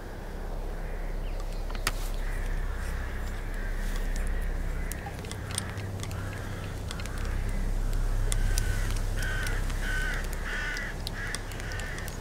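Crows cawing outdoors, a run of quick harsh caws near the end, over a steady low background rumble. Scattered light clicks come from a flute's metal keys and case being handled.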